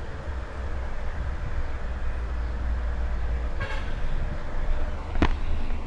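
Steady low background rumble of road traffic, with a short horn toot about three and a half seconds in and a sharp click about five seconds in.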